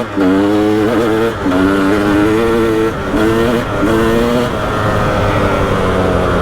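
KTM 300 XC's single-cylinder two-stroke engine revving under riding: the pitch climbs, then drops off several times as the throttle is opened and shut. It runs steadier near the end.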